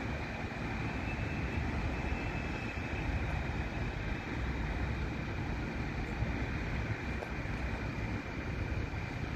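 Steady rumble of a train moving in the distance through the station, with a faint, steady high whine over it.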